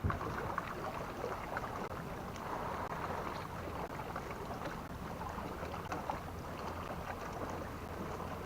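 Steady outdoor noise of water against a kayak hull with light wind on the microphone, dotted with faint small taps.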